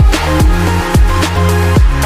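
Electronic dance music with a heavy bass line and a kick drum falling in pitch on each beat, about two beats a second, over steady synth notes.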